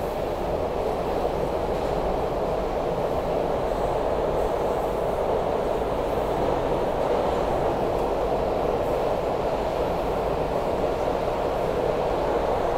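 SEPTA Broad Street Line subway car (Kawasaki B-IV) running on the rails, heard from inside the car: a steady rumble and rush of wheels and running gear.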